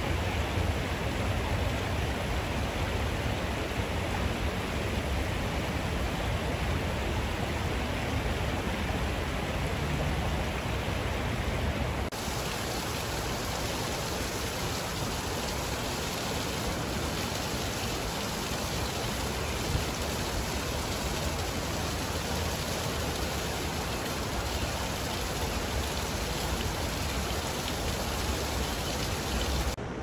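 Steady rushing of a shallow river flowing over rocks and riffles.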